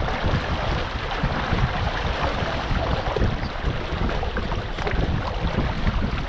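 Water rushing and splashing along the hull of a Catalina Capri 22 sailboat moving under sail, with no engine running. Steady wind buffets the microphone with a low rumble throughout.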